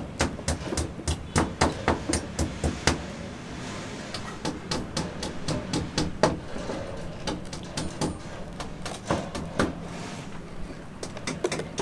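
Hammer blows on a building site: a quick run of strikes, about four a second, for the first three seconds, then slower, scattered knocks, with one louder blow about six seconds in.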